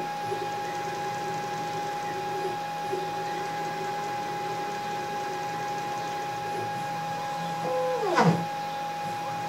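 Stepper motors of a CNC router moving its gantry and carriage, with a steady high-pitched whine underneath. Near the end the pitch sweeps quickly down and back up as an axis moves fast, the loudest moment.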